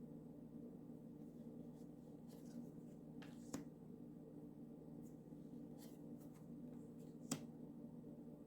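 Oracle cards being handled and flipped through by hand: faint soft rustles and two sharp clicks, one about three and a half seconds in and a louder one near the end, over a low steady hum.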